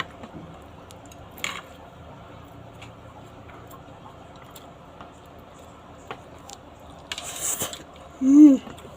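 Eating noises from a noodle mukbang: light clicks of chopsticks on the dish, with brief moist slurping or chewing noises about a second and a half in and again around seven seconds. Near the end comes a short hummed "mm", rising and then falling in pitch.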